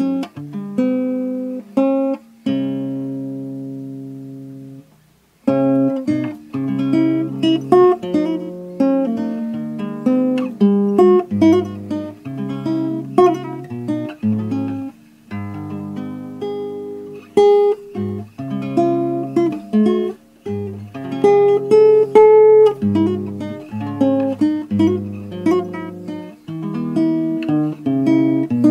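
Background music: solo acoustic guitar playing plucked notes and chords, with one chord left to ring and fade about three seconds in and a brief stop just after five seconds in before the picking resumes.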